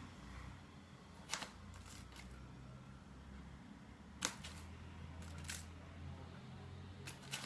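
A metal spoon clicking and tapping a few short times as desiccated coconut is spooned onto the cake, the loudest tap about four seconds in, over a low steady hum.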